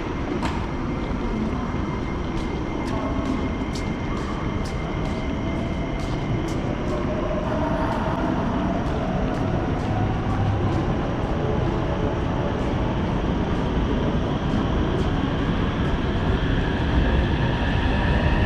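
Electric commuter train pulling out of the platform, its traction motors giving a whine that slowly rises in pitch as it gathers speed. There is a rumble underneath, and a run of sharp clicks in the first half.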